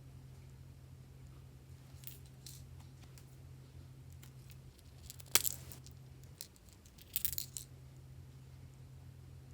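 A few sharp small clicks and crackles over a steady low hum: scattered light clicks, one louder click about five seconds in, then a quick cluster of clicks a couple of seconds later.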